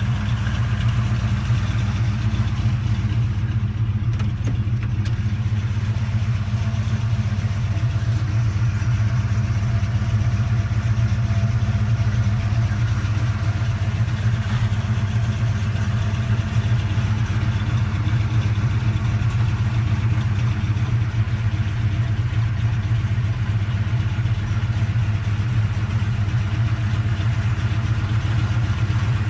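1966 Chevrolet Impala's engine idling steadily, a constant low drone.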